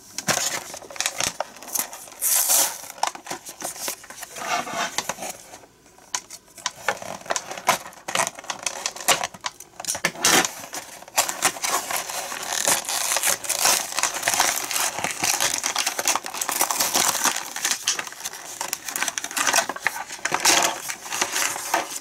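A toy blister pack being opened by hand: the cardboard backing card is peeled and torn away from the clear plastic blister. It makes a continuous run of crinkling, crackling and small cracks.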